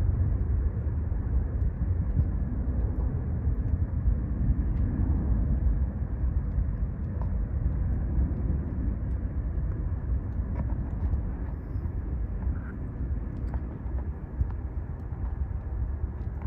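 Jet airliner rumbling overhead, a deep steady roar that slowly fades away.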